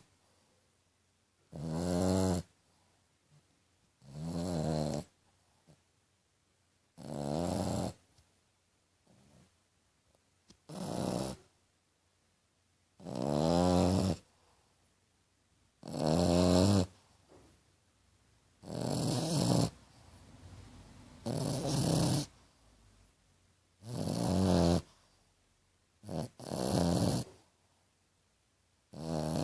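A sleeping French bulldog snoring, loud buzzy snores of about a second each, one every two to three seconds, like a little pig. Near the end one snore comes as two quick snorts.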